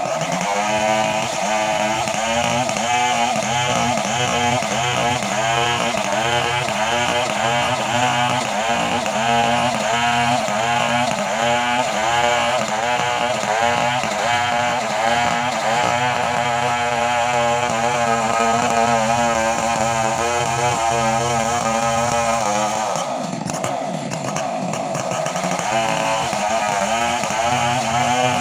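Chainsaw engine running for a long stretch, its pitch wavering up and down in a steady rhythm. About 23 seconds in it briefly dies down, then picks up again.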